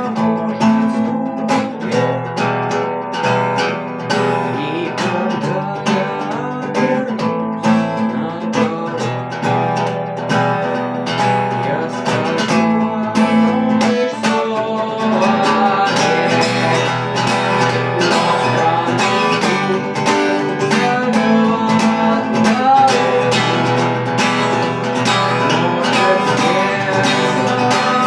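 Acoustic guitar playing steadily, a continuous run of plucked and strummed notes over a sustained low bass.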